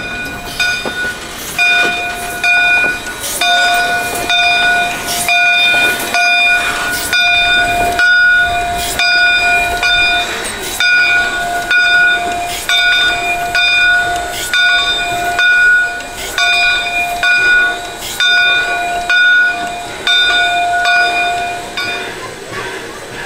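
The bell of a 4-4-0 steam locomotive ringing as the engine rolls slowly in, struck about one and a half times a second with the ring carrying on between strokes. The ringing stops near the end.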